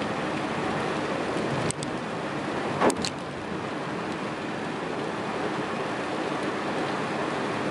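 Car tyres hissing on a rain-soaked expressway, heard from inside the cabin as a steady rush of road and rain noise. There is a faint double click a little under two seconds in, and a louder short knock about three seconds in.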